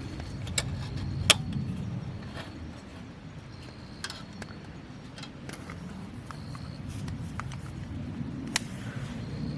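Wood campfire crackling: scattered sharp pops at irregular intervals over a low steady rumble.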